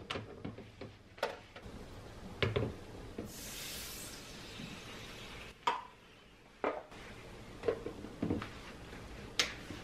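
Eggs and plastic parts of a Bomann egg cooker being handled, making light clicks and knocks. About three seconds in, water is poured into the cooker's base for roughly two seconds. More plastic knocks follow as the clear lid is fitted on.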